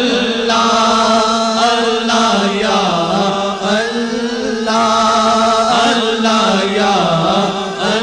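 A naat, an Urdu devotional song, sung by a solo voice in long, drawn-out melodic lines with short breaths between phrases.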